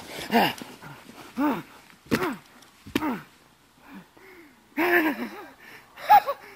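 A person whimpering in distress: about six short, breathy voiced cries, each sliding up and then down in pitch, between gasping breaths.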